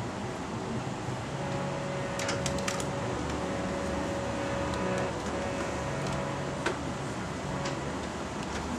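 Steady room hum, like ventilation running in a hall, with a faint held tone coming and going and a few faint clicks about two to three seconds in and again near the end.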